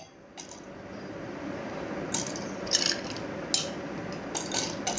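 Ice cubes dropped by hand into a drinking glass, clinking about six times from about two seconds in.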